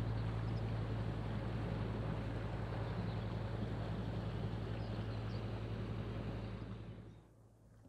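A steady low engine hum over a rushing noise, which fades away about seven seconds in.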